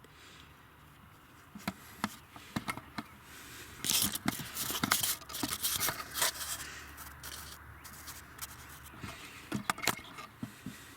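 Hands fitting a replacement cooling fan module and its wire harness in the engine bay: irregular scraping, rubbing and sharp clicks of plastic parts being handled and pushed into place, busiest about four to five seconds in.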